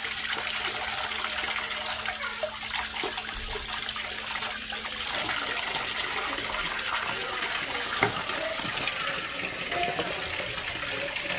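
Tap water running and splashing onto live land crabs and the concrete sink as they are washed, a steady rushing hiss, with one sharp knock about eight seconds in.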